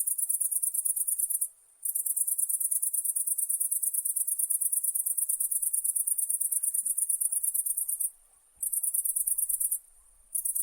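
A night insect trilling: a very high-pitched, rapidly pulsed buzz in long bursts, broken by short pauses about 1.5 s in, near 8 s and near 10 s.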